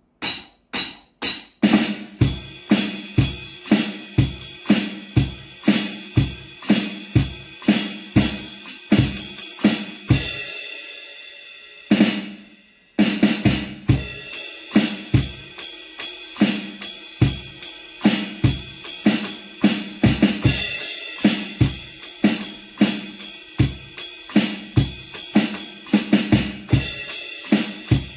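CPD 1000 portable electronic drum kit played as a drum-kit groove through a guitar amplifier. A short fill opens it, then a steady beat of kick, snare and hi-hat runs on. A crash cymbal rings out and decays about ten seconds in, there is a brief stop, and the beat starts again with further crashes.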